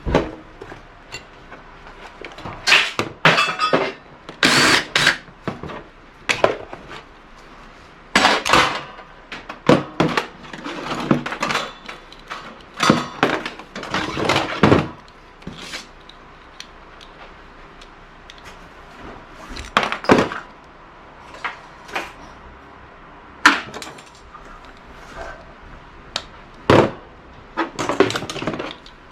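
Hand tools and metal parts of a gas wall heater being dismantled for scrap: irregular clanks, knocks and scraping of metal on metal, in clusters with short pauses between.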